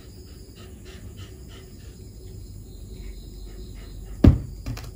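Close-miked chewing and mouth sounds of someone eating, soft wet smacks about three a second in the first half. A sharp, loud knock comes near the end, followed by two lighter ones.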